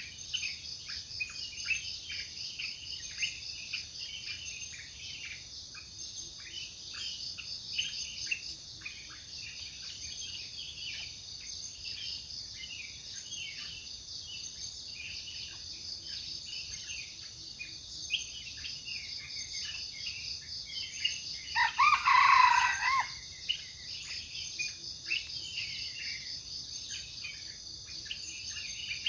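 Wild junglefowl crowing once, briefly and loud, a little past twenty seconds in, over a steady high drone of forest insects and many short, quick bird chirps.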